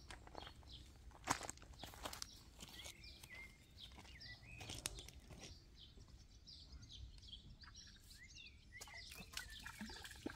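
Faint small birds chirping and twittering, with a few footsteps and knocks on a wooden deck; the sharpest knock comes about a second in.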